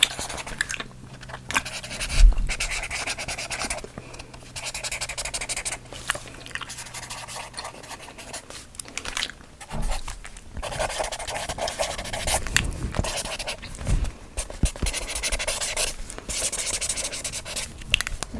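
Close-miked ASMR trigger sounds: irregular scratchy rubbing and breathy noises broken by many small clicks.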